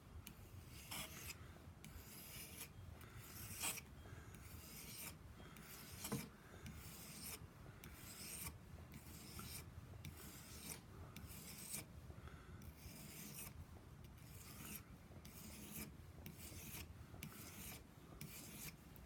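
Steel blade of a Schrade Old Timer pocket knife being stroked over a wet 1,000-grit sharpening stone, faint rhythmic rasping passes at about two a second. The knife is being sharpened from very dull.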